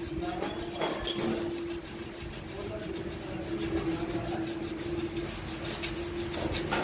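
Hand rubbing and scraping inside the cast-iron main bearing bore of an engine block, over a steady hum.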